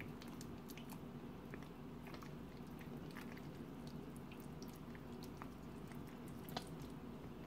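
Faint wet squishing and small sticky clicks of hands rubbing marinade into raw chicken drumsticks, over a steady low hum.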